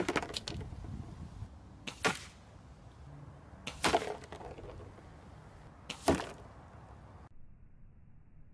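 Kral Armour .22 PCP air rifle firing four shots about two seconds apart, each a sharp crack with the pellet striking the cardboard target and the mints set on it.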